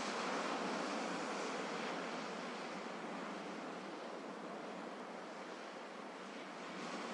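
Gentle sea waves washing ashore: a steady hiss of surf that swells just after the start, ebbs slowly over several seconds and begins to build again near the end.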